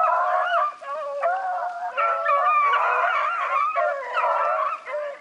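A pack of rabbit hounds baying together, several voices overlapping in long wavering howls, as the dogs run a rabbit's trail.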